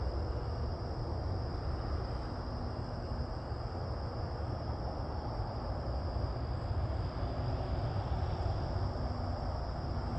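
Outdoor night ambience: a steady high chorus of insects over a continuous low rumble.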